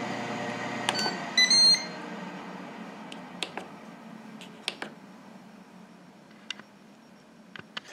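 Ninja Foodi 5-quart Mini air fryer: a click, then a short electronic beep about a second and a half in, while the steady whoosh of its air-crisp fan fades away. A few light clicks follow.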